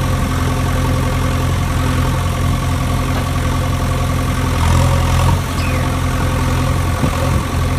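A steady low mechanical hum, like an engine idling, made of several even, unchanging tones.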